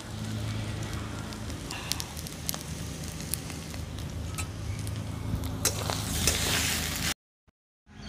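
Wood fire crackling in a clay stove under a kadai of boiled potatoes being stirred, with scattered sharp clicks and light scraping over a steady low rumble. The sound drops out abruptly for under a second near the end.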